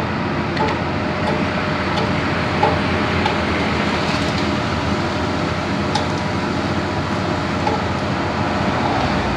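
Heavy diesel machinery running steadily under load, with a few faint clicks and knocks.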